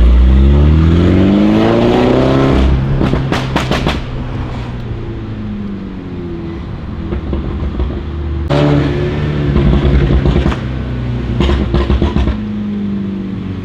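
Mini Cooper S F56's turbocharged four-cylinder through a decat straight-pipe Fi exhaust, heard inside the cabin: the engine climbs in pitch under acceleration for nearly three seconds, then a burst of exhaust pops and crackles on lift-off. It pulls again about eight and a half seconds in, followed by more pops.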